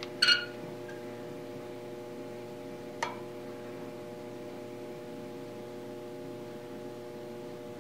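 Steady mains hum. A light metallic clink just after the start as the steel lead screw is stood upright on the bench, and a single sharp click about three seconds in as the height gauge is set on it.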